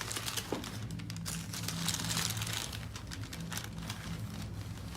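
Faint background music with soft rustling and small scattered clicks from a patient being positioned on a chiropractic table.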